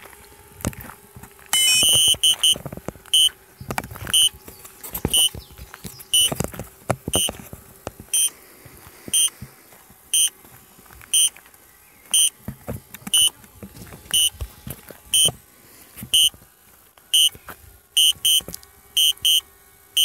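Sharp, high electronic warning beeps from the DJI Spark's controller as the link to the aircraft is lost, repeating about once a second with some in quick pairs. Under them is a faint steady hum and scattered brief thumps.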